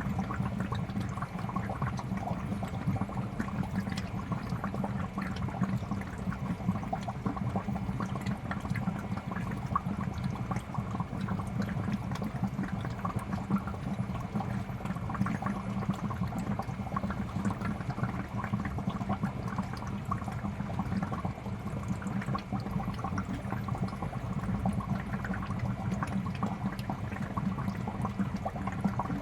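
Fish tank air bubbler: a steady, continuous stream of bubbles rising and popping in the aquarium water.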